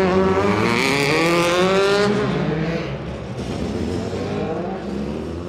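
Racing engine revving hard, its note climbing for about two seconds, then dropping back to a quieter, rougher running sound.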